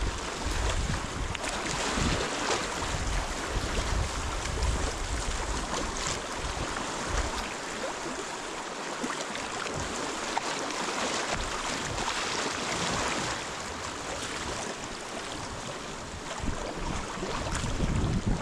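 River water rushing and splashing around a kayak, with wind rumbling on the microphone at the start and again near the end.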